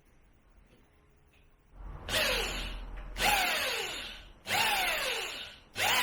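Power drill running in four short bursts, starting about two seconds in, its pitch falling during each burst.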